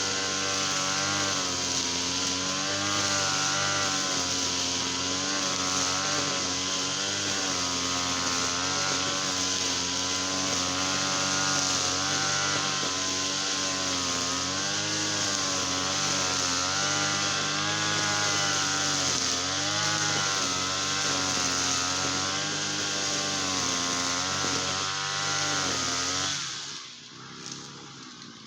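Small petrol engine running steadily, its speed wavering slightly up and down, then shut off near the end.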